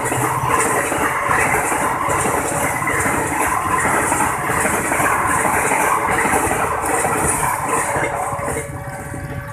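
Passenger train coaches running past over a level crossing, a steady rumble and clatter of wheels on rails. It fades near the end as the last coach clears the crossing.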